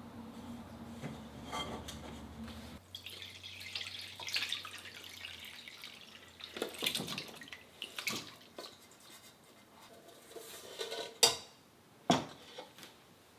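Water dripping and splashing as wet wool yarn is handled in a dye pot, with metal pots and utensils clinking and two sharp knocks near the end. A low hum fades out after the first few seconds.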